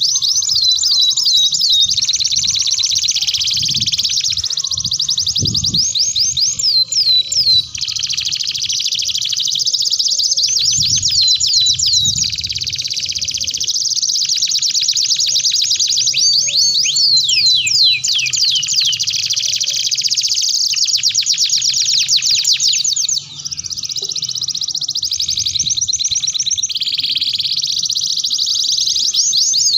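Domestic canaries singing a long, continuous song: fast trills and rolls mixed with runs of repeated falling whistled notes, broken only by a couple of brief pauses.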